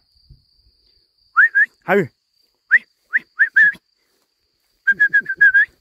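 A person whistling to call dogs: short rising whistled notes, spaced out at first, then a quick run of about six short whistles near the end. A single shouted 'hai' comes about two seconds in.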